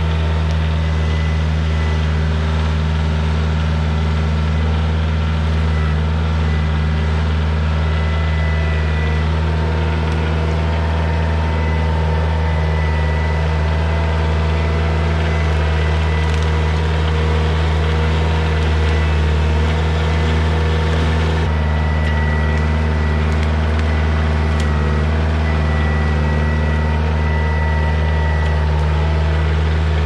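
Kioti compact diesel tractor engine running steadily while it works the front loader and hydraulic grapple to lift logs. A thin, steady high whine sits over the engine drone.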